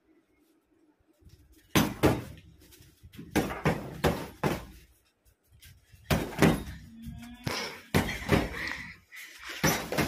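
Boxing-glove punches thudding into a stuffed makeshift punching bag, about a dozen hits in quick combinations of two or three starting about two seconds in, with music underneath.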